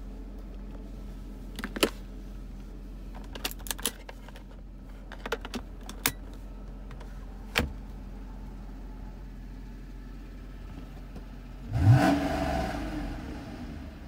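A few scattered sharp clicks and taps, then about twelve seconds in a Mercedes W140's engine starts: it catches suddenly, flares up briefly in pitch and settles toward idle.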